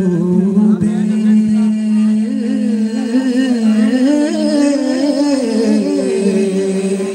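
Male voice singing an unaccompanied, ornamented melody into a microphone over a steady hummed drone. The melody climbs in the middle and settles back onto the drone near the end.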